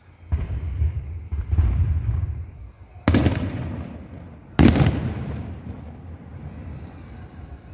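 Firework shells bursting: low rumbling booms in the first few seconds, then two sharp loud bangs about a second and a half apart, each trailing off in a rolling rumble.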